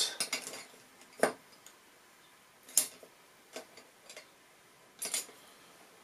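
Paintbrushes being handled, their handles clicking and knocking lightly on hard surfaces: about half a dozen separate taps, the sharpest about a second in and near the three-second mark.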